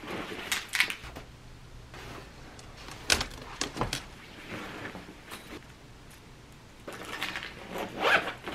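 Zippers on a backpack and a quilted laptop sleeve being pulled in short strokes while things are packed, with cloth handling and a sharp knock about three seconds in; the longest, loudest run of zipping comes near the end.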